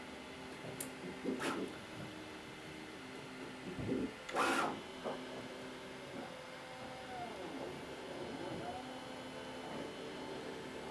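Bambu Lab A1 3D printer's stepper motors running as a print starts, holding steady tones and then gliding up and down in pitch as the head moves, with a few clicks early on and a louder knock about four seconds in.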